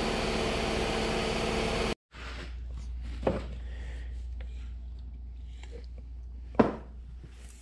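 A steady motor hum with an even drone cuts off abruptly about two seconds in. A quieter low hum follows, with a few faint clicks and one sharp knock near the end.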